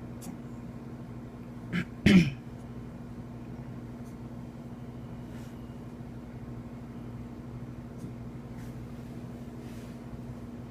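A cocker spaniel giving two quick sneezes or snorts about two seconds in, the second louder, over a steady low hum.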